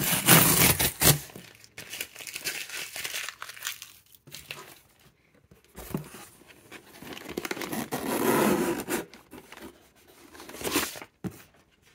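Clear packing tape ripped off a cardboard box, loudest in the first second. Then the box flaps and the packing paper inside rustle and crinkle in scattered bursts as the box is opened.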